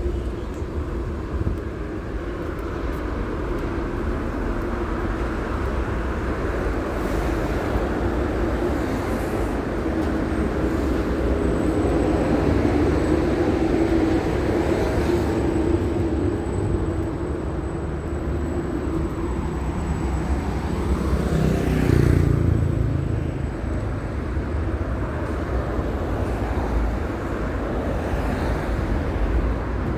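Steady city street traffic from an adjacent road: a continuous rumble of passing cars with a low hum. About two-thirds of the way through, one vehicle passes close by, its pitch sweeping as it goes, the loudest moment.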